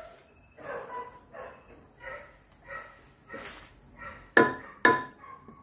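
Two sharp knocks about half a second apart near the end, from a wooden block striking a 4DR5 cylinder head clamped in a lathe chuck. The head is being tapped over a little to true it before refacing.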